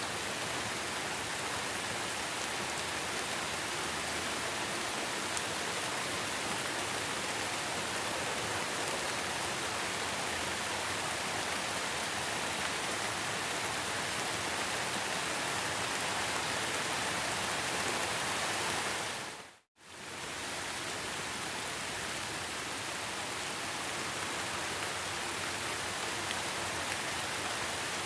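Heavy rain falling in a steady, even hiss. About two-thirds of the way through it cuts out to silence for a split second and comes straight back.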